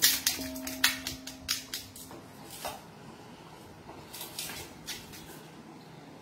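Stainless steel bowls clinking and knocking as masala-coated raw mango pieces are handled and moved between them: a quick run of knocks in the first few seconds, the first ringing on briefly, then a few lighter clinks about four to five seconds in.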